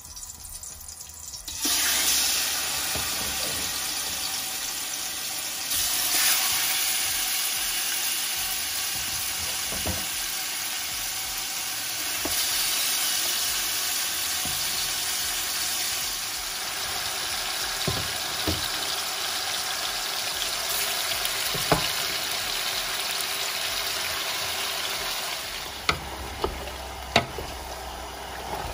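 Marinated chicken pieces going into hot oil in a large stainless-steel stockpot and sizzling, a steady frying hiss that starts suddenly about two seconds in and surges as more pieces are added. In the second half the meat is stirred with a wooden spatula, with a few sharp knocks of utensils against the pot.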